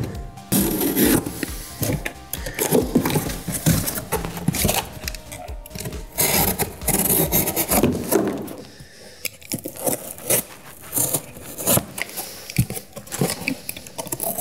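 A corrugated cardboard box being torn apart by hand: repeated irregular ripping, scraping and rubbing of cardboard. Near the end, a utility knife saws through a cardboard panel.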